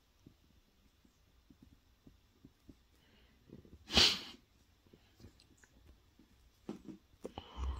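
A small dog mouthing and chewing a wire coat hanger, with faint scattered clicks of the wire, and one short sharp sneeze about four seconds in that is the loudest sound. A few more clicks and a soft thump come near the end.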